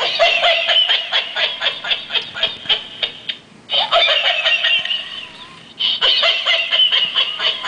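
Laughing plush bull toy playing recorded laughter through its small speaker: rapid, thin ha-ha-ha bursts in three bouts, broken by short pauses about three and a half and six seconds in.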